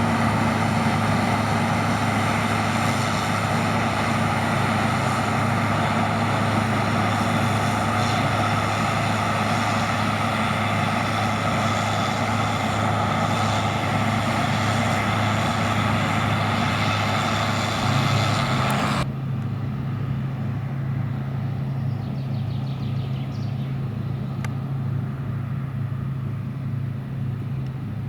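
Heavy harvest machinery running: a steady diesel engine hum under a loud, even rushing noise. About two-thirds through, the rushing cuts off abruptly, leaving a lower engine hum with a regular pulsing.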